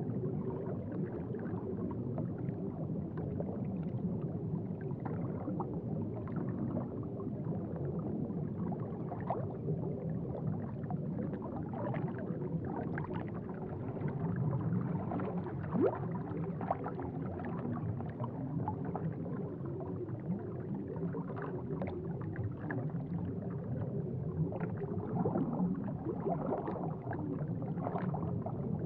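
Aquarium water bubbling and gurgling steadily, low-pitched, with many small pops of bursting bubbles and one louder pop about halfway through.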